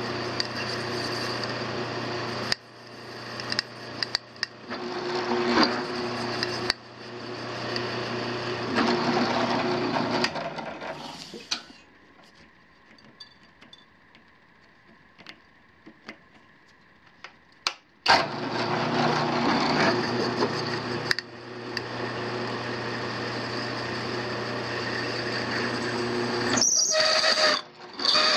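Drill press running with a carbide ball end mill cutting dry into stainless steel sheet, a steady motor hum mixed with cutting noise. About twelve seconds in it drops to a faint hum for about six seconds, then the cutting sound comes back. Near the end there is a brief high-pitched squeal.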